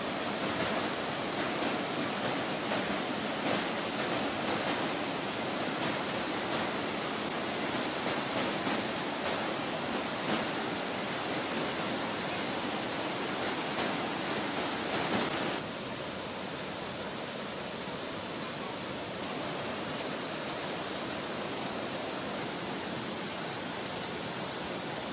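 A mountain river in flood after heavy rain, muddy water rushing over rocks and a waterfall in a steady loud rush. The sound drops a little in level about two thirds of the way in.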